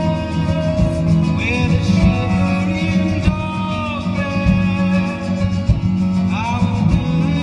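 Background music: a song with plucked guitar and a singing voice.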